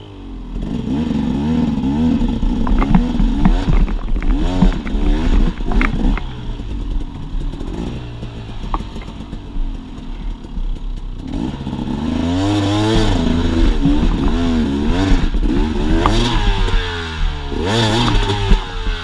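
Dirt bike engine revving up and down over and over as it climbs rocky ledges, the revs rising and falling most strongly in the second half. Scattered sharp knocks and clatter of the bike on rock.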